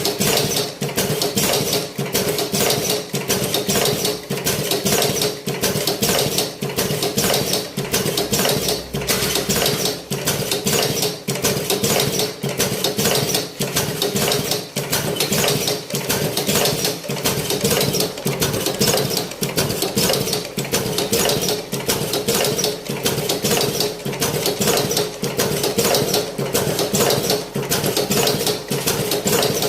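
Cigarette-making machine running steadily: a fast, even clatter of rapid mechanical clicks over a constant hum.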